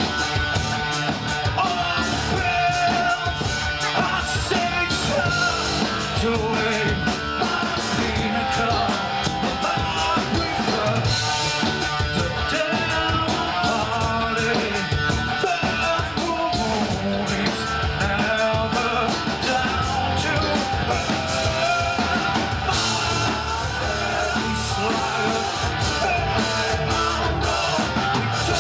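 Live rock band playing loudly: drum kit, electric guitar and bass in a driving, continuous stretch of a song.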